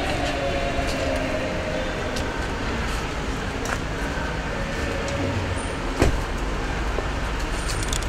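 Steady low rumble of vehicle and street noise, with faint voices near the start and a single sharp knock about six seconds in.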